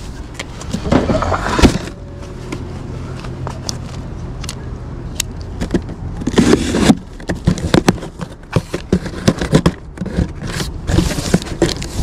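Cardboard box being picked up and handled: bursts of scraping and rustling cardboard with a few sharp clicks, over a steady low mechanical hum.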